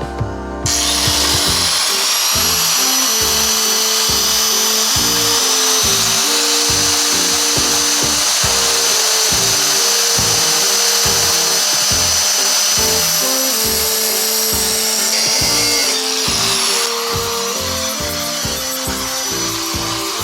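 A power tool cutting through a 2 mm thick aluminium angle: a loud, steady grinding whine with a high ringing tone. It starts about a second in and eases slightly near the end. Background music with a steady beat plays underneath.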